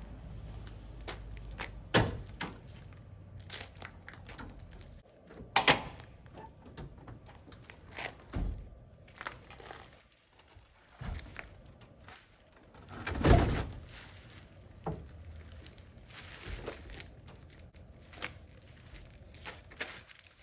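A series of separate knocks, clunks and light rattles at irregular intervals, the loudest about two, five and a half and thirteen seconds in.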